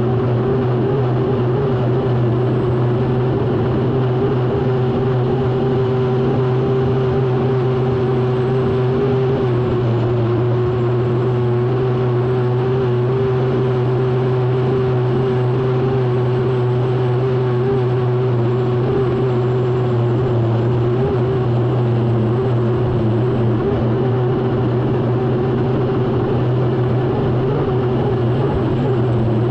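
An unlimited hydroplane's turbine engine running steadily under power, heard from onboard. It is a continuous drone with a strong low hum and a higher whine above it, and the level holds even throughout.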